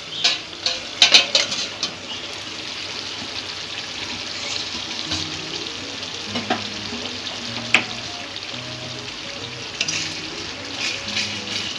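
A metal lid clinks as it comes off the pot, then katla fish in a thin gravy bubbles and sizzles steadily at low heat. A few clicks of a metal spatula against the pot come near the end.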